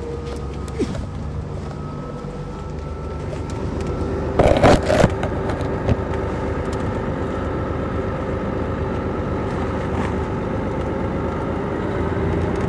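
Detroit Diesel Series 60 engine of an MCI D4500 coach running steadily, heard from inside the bus, with a whine over the drone; it grows louder a few seconds in. About four and a half seconds in there is a brief loud burst of noise.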